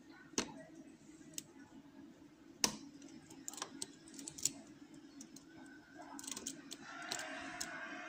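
Sharp metallic clicks and ticks of a lock pick and tension wrench working the pins inside a pin-tumbler cylinder lock, coming irregularly and bunching together in places; a fainter, more continuous sound comes in near the end.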